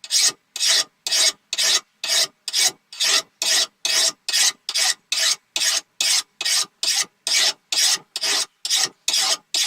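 Hand file scraping along the edge of a steel lawn mower blade in about 22 even strokes, a little over two a second, each a short rasp with a brief gap between. The file is smoothing the freshly bench-ground edge to remove the grinder lines.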